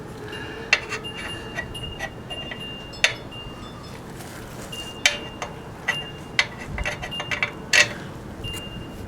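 Irregular metallic clicks and clinks of hand tools and bolts on the generator's steel frame, several with a brief ring, coming thicker near the end.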